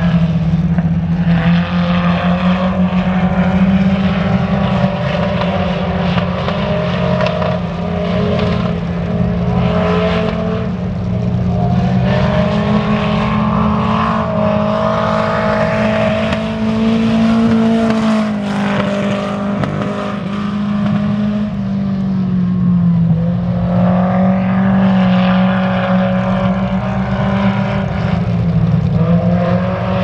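A single dirt-track race car's engine running hard through a timed lap, its pitch rising and falling as it accelerates down the straights and lifts for the turns.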